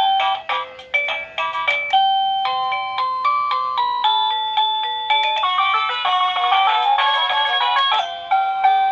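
Plug-in wireless doorbell receiver playing its electronic chime tunes through its small speaker: beeping synthesized melodies, one after another, as the chime selection is stepped through. A new tune of repeated notes starts near the end.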